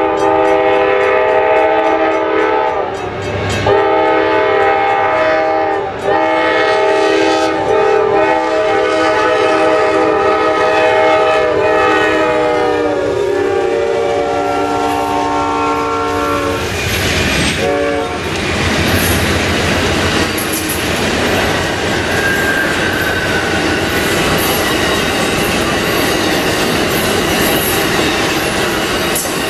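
Amtrak Auto Train's lead GE P42 diesel locomotive blowing its multi-chime horn in several long blasts as it approaches. The horn drops in pitch as the locomotive passes and stops about 17 seconds in. Then the four locomotives' diesel engines rumble by, and the bilevel passenger cars' wheels clatter over the rail joints.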